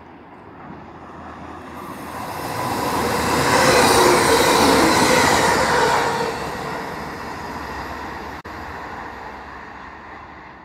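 TransPennine Express Class 185 diesel multiple unit passing along the platform, its noise swelling to a peak about four to five seconds in as it goes by, then fading away.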